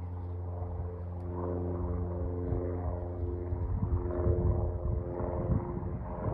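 Cessna 172P Skyhawk's four-cylinder Lycoming piston engine droning steadily as the plane climbs out after takeoff, heard from the ground. Gusts of wind buffet the microphone in the second half.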